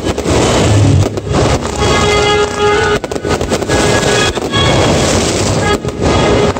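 Music playing loudly over the show's loudspeakers, with fireworks bursting several times over it.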